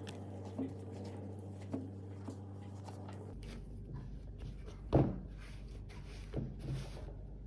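Kitchen handling sounds: light knocks and clicks, with one louder knock about five seconds in, over a steady low hum that drops in pitch a little past three seconds in.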